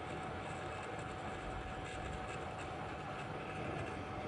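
Hot air rework station blowing steadily on a phone motherboard during a reflow: an even rushing hiss with a faint steady whine.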